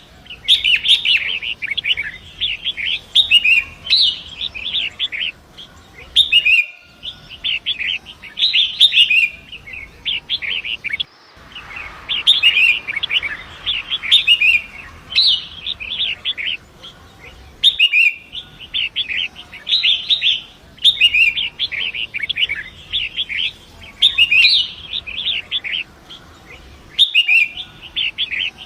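Long-tailed shrike (pentet) singing a rapid, chattering, varied song in phrases of one to two seconds with short gaps between them, over a faint steady rush of river water.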